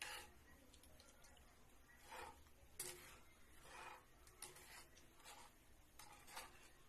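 Metal spoon scraping and stirring in a wok of oil and sugar that is melting down to caramel. The scrapes are faint, roughly one a second.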